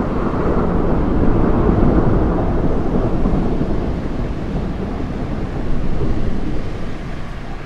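Thunder rumbling low and loud, swelling about a second in and again near six seconds.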